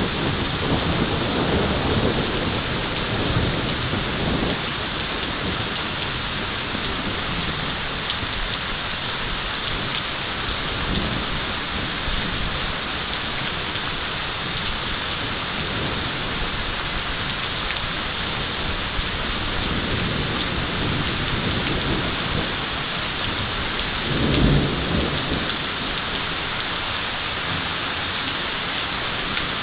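Heavy rain falling steadily through a thunderstorm, with low thunder rumbling in the first few seconds and a louder, short peal of thunder near the end.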